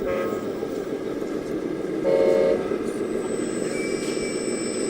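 Two horn blasts from a radio-controlled model vehicle's sound module: a short toot at the start, then a louder one about two seconds in, lasting about half a second. A steady background noise runs underneath.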